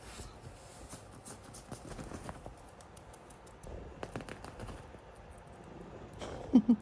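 Light, scattered clicks and taps of a kitten playing and scrabbling on a hard floor. Near the end comes one short, louder vocal sound.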